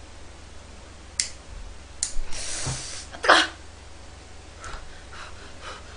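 Two sharp clicks about a second apart from the knob of a portable gas burner, then a short hiss, then a loud, short breathy burst.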